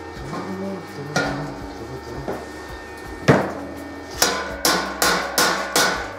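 Hammer striking freshly stick-welded steel inside the bowl end of a compressor receiver, knocking slag off the weld. A few scattered strikes at first, the loudest about a third of the way in, then an even run of about two to three ringing metallic blows a second.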